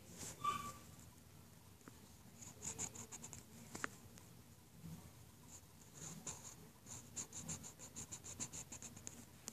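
Pencil scratching on paper in quick back-and-forth strokes, about five or six a second: a short run about two and a half seconds in and a longer one from about five and a half seconds on. A brief squeak near the start is the loudest sound, and there is a single sharp click just before the four-second mark.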